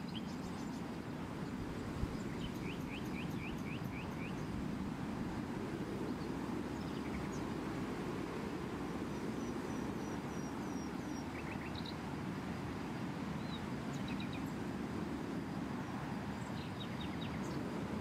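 Outdoor ambience: small birds chirping in short quick runs of high notes, several times, over a steady low rumbling noise.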